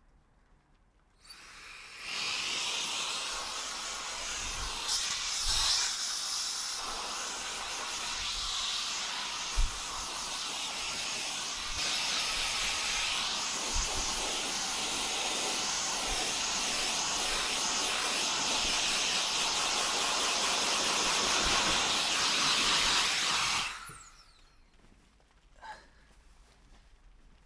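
Bendict Mach 1 cordless air gun (handheld electric blower) running: its motor spins up about a second in, gives a long steady hissing rush of air, and winds down near the end. A sharp knock sounds about a third of the way through.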